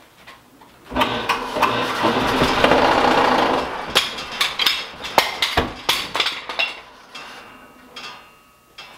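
A light sheet-metal-housed wood lathe starting up at its slowest speed, about 980 RPM, with a large square block of blue stain pine mounted. The whole machine shakes and rattles loudly for about three seconds, then a run of sharp knocks follows as the block slows to a stop. The violent vibration is the sign that the cheap lathe cannot handle a blank that heavy and out of balance.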